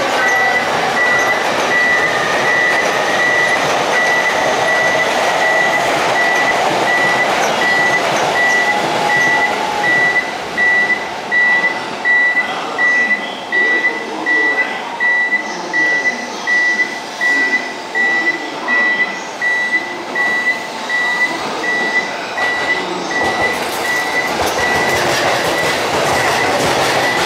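E531 series electric train approaching and running into the platform, with an evenly repeated high electronic beep sounding throughout.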